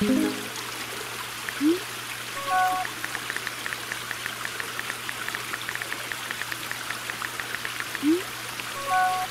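Phone text-messaging sound effects over the steady trickle of a small garden-pond waterfall: short rising swooshes as messages are sent, a chime of several tones twice as replies arrive, and a run of quick keyboard taps in the middle.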